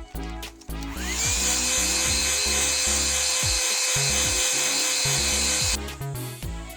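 Handheld hot-air blower switched on about a second in, its motor whining up to a steady pitch and running with a loud rushing hiss, then switched off abruptly near the end, over background music.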